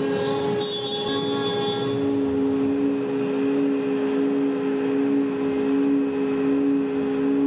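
DWC5100 CNC router cutting a plywood sheet: the spindle and dust collection run steadily, two held tones over a rushing noise. A higher whine above them drops away about two seconds in.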